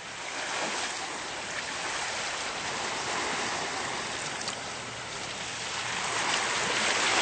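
Sea surf washing in, a steady rushing hiss with a wave swelling louder near the end.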